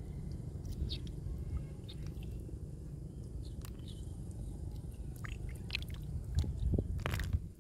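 Golden apple snails being picked by hand from shallow water: scattered small clicks and crunches of their shells knocking together, with a louder cluster near the end, over a steady low rumble.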